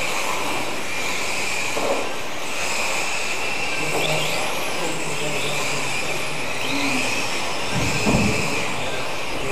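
Several radio-controlled mini touring cars racing on a carpet track, their electric motors whining steadily, with pitch wavering and briefly rising as they accelerate. A low thump comes about eight seconds in.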